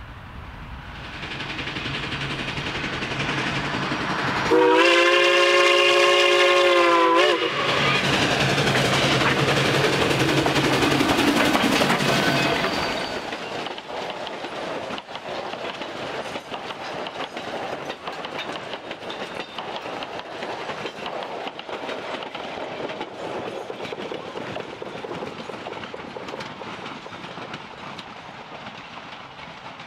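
Narrow-gauge steam train passing, its locomotive (Durango & Silverton No. 473, a K-28 2-8-2) blowing one long steam whistle blast about five seconds in that lasts nearly three seconds. The locomotive's running noise stays loud until about thirteen seconds in, then the cars roll by with their wheels clicking over the rails.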